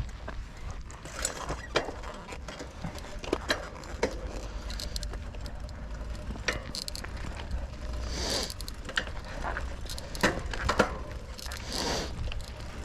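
Bicycle being ridden: irregular clicks and rattles from the bike's parts over a steady low rumble.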